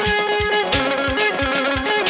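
Azerbaijani wedding band playing an instrumental tune. An electric guitar carries the melody, a held note that breaks about half a second in into quick, ornamented turns, over a steady beat of about four drum strokes a second from a pair of drums and a frame drum, with keyboard.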